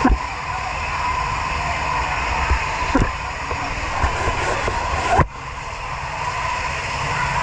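Steady street din of a water tank truck running and its hoses spraying water, with voices mixed in. A few sharp knocks, and an abrupt break in the sound about five seconds in.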